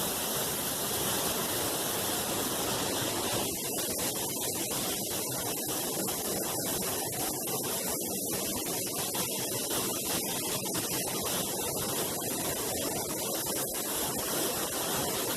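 Steady rushing of a large waterfall pouring into a pool, a constant hiss-like roar.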